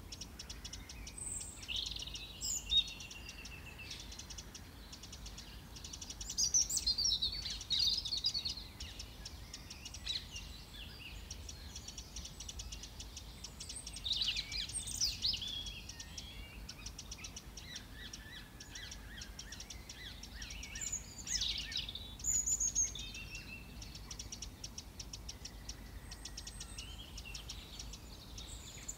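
Songbirds singing in the background: bursts of high chirps and trills every few seconds, loudest about six to eight seconds in and again around fourteen and twenty-two seconds in, over a faint steady outdoor hiss.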